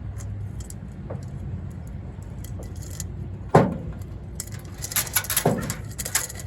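Light metal chain clinking and jangling as it is handled, with a sharp knock about three and a half seconds in and another about two seconds later, followed by a run of quick clinks.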